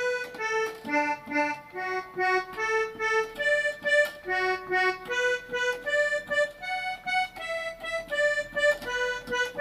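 Electronic keyboard with an accordion voice playing the first part of a forró-style solo melody one note at a time. The short, separate notes move up and down at about three a second.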